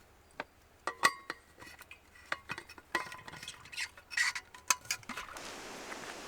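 Hard kitchen items clinking and knocking as they are handled: a string of sharp clicks and clinks, a few of them ringing briefly. Near the end a steady hiss begins.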